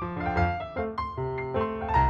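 Piano music: a melody of separate notes over regularly repeating bass notes.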